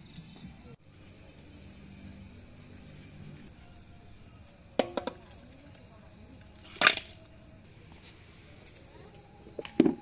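Kitchenware being handled as raw duck meat is tipped from a plastic bowl into a metal cooking pot: a few sharp clicks and knocks, three in quick succession about five seconds in, the loudest about seven seconds in, and more near the end.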